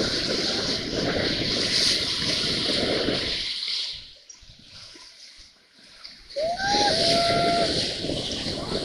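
River rapids rushing and splashing around an inflatable raft, a steady wash of white water that drops quieter for a couple of seconds in the middle. About two-thirds through, a person lets out a long shout over the water.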